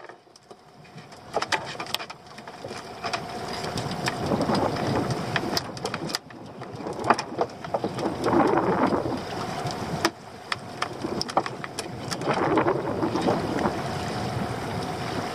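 Sea water sloshing against a small open boat, swelling and fading every few seconds, with scattered sharp clicks and knocks.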